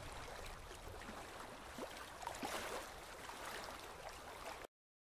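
Faint hiss and room tone of a recording, with a few faint small clicks, that cuts off suddenly to dead silence near the end.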